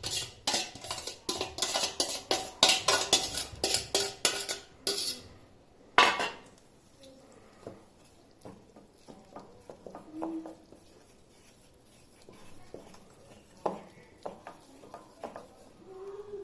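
Utensil stirring cake batter in a mixing bowl, clinking fast and steadily against the bowl for about five seconds. One sharp clink about six seconds in, then only occasional faint taps.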